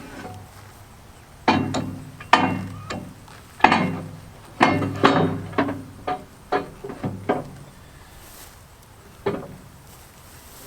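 Heavy steel clamp-on pallet forks clanking against a tractor's loader bucket as they are shifted into position: about a dozen ringing metal knocks in quick, uneven succession, then one more a couple of seconds later.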